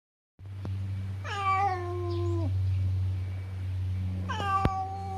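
A stray cat meowing twice, each a long drawn-out meow lasting over a second, over a steady low hum. A sharp click comes during the second meow.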